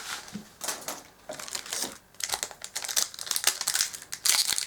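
Foil Yu-Gi-Oh booster pack wrappers crinkling as packs are handled and opened, in irregular bursts that are densest and loudest near the end.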